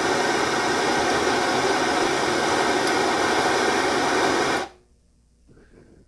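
Handheld gas torch burning with a steady hiss while its flame heats a water heater thermocouple; the hiss cuts off suddenly near the end as the torch is shut off.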